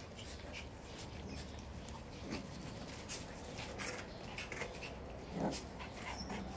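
Two Shiba Inu puppies play-fighting, giving short growls and yips, the loudest about five and a half seconds in, with light clicking of claws on the tile floor.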